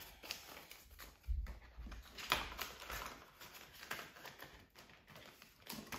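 Paper banknotes rustling and a clear plastic binder envelope crinkling and clicking as the bills are slid into its pocket, in scattered short clicks with a soft low thump about a second and a half in.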